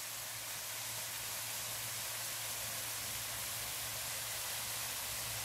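Tofu and minced beef sizzling steadily in a stainless steel wok, an even hiss with a faint low hum beneath it.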